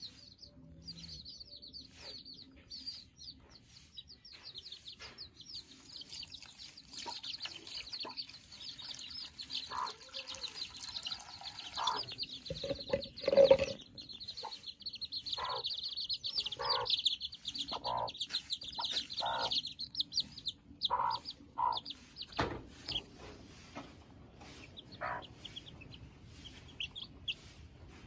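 Domestic chicks peeping steadily in rapid high chirps, with a hen clucking repeatedly through the middle, one call louder than the rest about halfway through.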